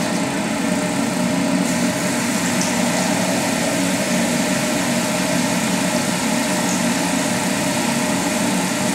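Steady motor drone, like a fan running, with a hiss over it and no change in level.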